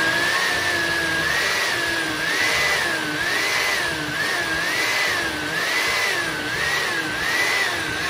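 Countertop blender running, giving a thick blackberry, banana and milk smoothie its final blend. Its motor pitch wavers up and down a little more than once a second.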